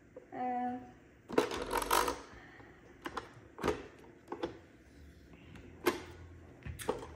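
Hard plastic clicks and knocks as the Braava robot mop and its cleaning-pad plate are handled and pressed together on a stone countertop: a quick clatter of clicks about a second in, then single knocks every second or so. A short steady beep sounds near the start.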